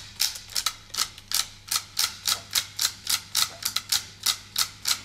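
Wooden ratchet and pawl of a UGears plywood tram model clicking as its mechanism is wound by hand: quick, fairly regular clicks, about four or five a second.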